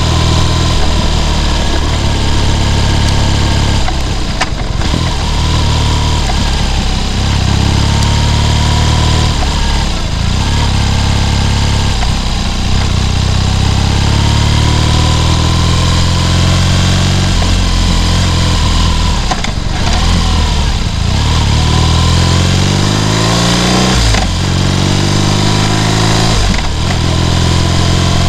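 BMW R nineT's boxer twin engine pulling under way, its revs climbing in each gear and dropping sharply at each of several gear changes.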